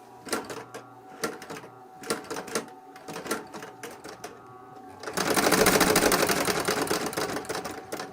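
Industrial walking-foot leather sewing machine with its electric motor humming: a few scattered clicks and clunks, then about five seconds in it stitches fast in a dense rapid rattle for roughly three seconds. It is running with no leather under the presser foot.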